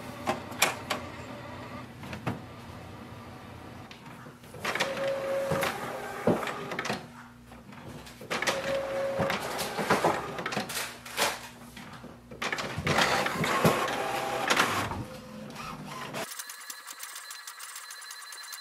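HP OfficeJet Pro 8139e inkjet printer going through its preparation cycle and printing the printhead alignment page: bursts of motor whirring, clicks and clatter from the paper feed and carriage, with two short whines. Near the end the sound changes abruptly to a thinner, higher sound.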